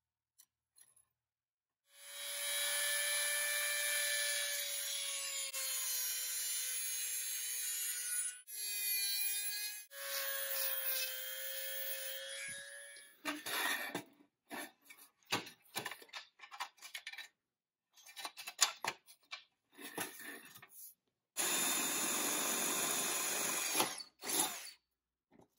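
A high-speed rotary tool with a small abrasive disc, its motor whining at a steady pitch as it grinds a rusty pressed-steel toy truck part, in two stretches with a short break between. Then come a run of short, uneven scraping bursts. Near the end a cordless drill runs steadily for a few seconds as it bores through a steel toy truck frame.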